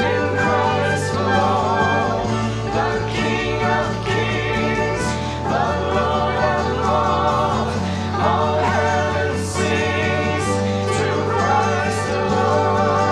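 A worship band playing and singing a hymn: several voices in unison and harmony over acoustic guitar, bass guitar, keyboard, drum kit and trumpet. Cymbals ring out every few seconds.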